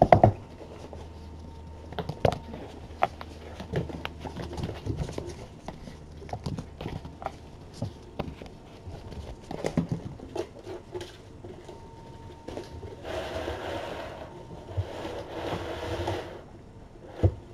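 Scattered taps and knocks in a small room, a loud knock at the start and another near the end, with two stretches of rustling about three-quarters of the way through.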